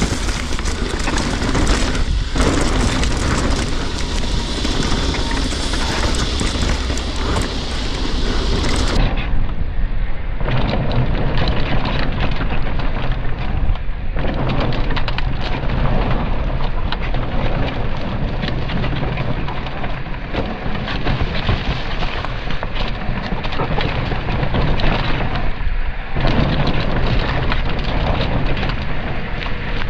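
Ride noise from an electric mountain bike descending a dirt and rock trail fast: steady wind rush over the camera microphone mixed with the rumble and rattle of tyres and bike over rough ground. About nine seconds in the sound turns duller.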